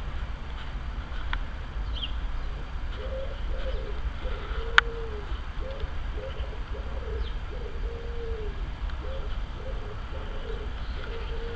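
A pigeon cooing in repeated phrases of a few low notes, starting about three seconds in, with a few faint high bird chirps. A single sharp click about halfway through, over a steady low rumble.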